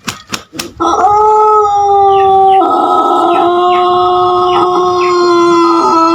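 Pelung rooster crowing: a few sharp claps, then about a second in one long, loud crow held at a steady pitch, still going at the end.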